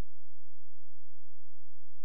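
A steady low-pitched hum, one unchanging tone with nothing else over it.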